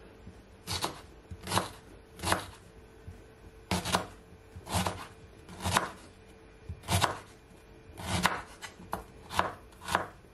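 Chef's knife slicing through fresh ginger root and knocking on a wooden cutting board, about one cut a second, unevenly spaced.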